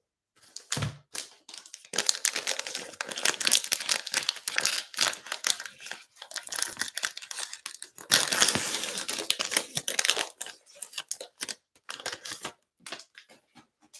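Plastic cello wrapper of an Illusions basketball card pack crinkling as it is torn open and the cards are pulled out. The crackling starts about two seconds in, is loudest a little past the middle, and thins to a few light ticks near the end.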